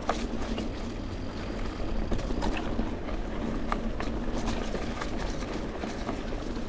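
Mountain bike rolling along a dirt trail: steady tyre and ride rumble with scattered clicks and rattles from the bike.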